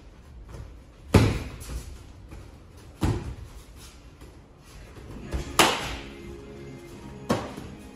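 Sharp smacks of kicks and punches landing on gloves, shin guards and body during light-contact kickboxing sparring: four main hits about two seconds apart, the first and third the loudest, over faint background music.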